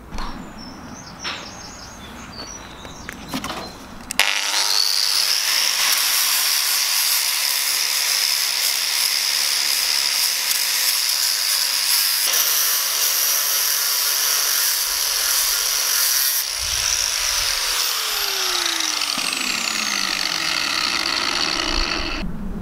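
Angle grinder starting up with a rising whine about four seconds in, then grinding steadily against the rough cast-iron body of an engineer's vice. Near the end the tool comes off the work and its whine falls as the disc spins down.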